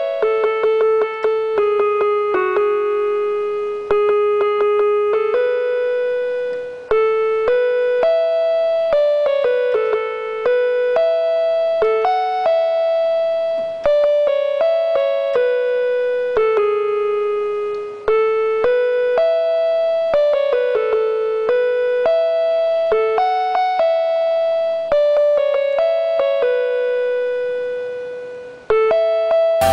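Casio electronic keyboard played by hand with a piano-like sound: a melody of struck notes, each fading after it is played, with chords and higher notes added above, in phrases with short breaks.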